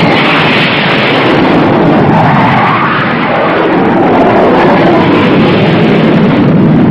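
A loud, steady mechanical roar with no clear pitch.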